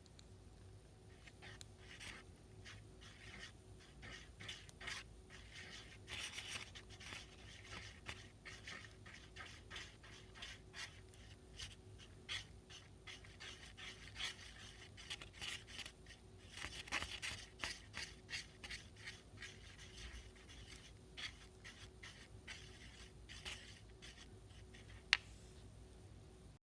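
Paintbrush strokes brushing paint onto chipboard walls: irregular soft scratching and rubbing, with one sharp click near the end.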